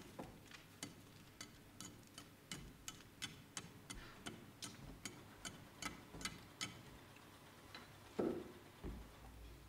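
Sharp, quiet ticking clicks, about three a second, that stop briefly near the end, with one dull low thump about eight seconds in.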